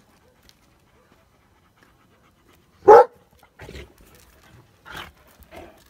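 Dogs play-wrestling: about three seconds in, a dog lets out one loud, short bark, followed by a few softer panting breaths and scuffles.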